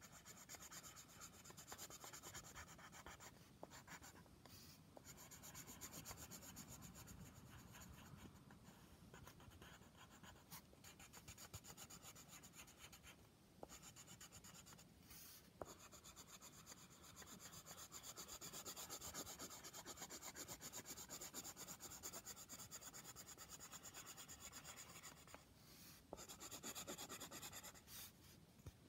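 Faint scratching of a grey coloured pencil shading on paper in quick back-and-forth strokes, with a few brief pauses.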